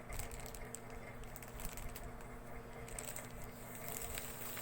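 Faint rustling and light tapping of a plastic-wrapped parcel being handled and opened by hand, over a low steady hum.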